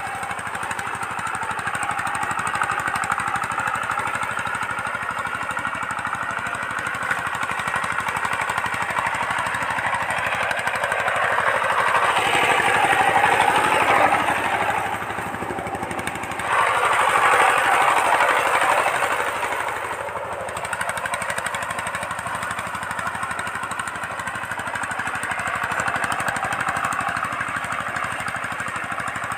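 Two-wheel power tiller's single-cylinder diesel engine running steadily with a rapid knocking beat, its rotary tines working dry soil as it drags a bamboo ladder leveller. The sound grows louder twice in the middle, as the machine passes close.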